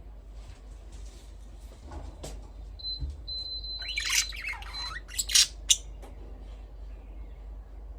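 Budgerigars chirping and squawking: soft scattered chirps, then a burst of loud, sharp calls around the middle.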